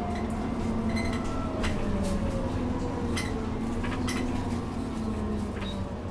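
Inside an Alexander-Dennis Enviro 400 bus on the move: steady diesel engine drone with a turbo whine that slowly falls in pitch, the turbo described as wheezing. Several sharp rattles from the bus interior break through.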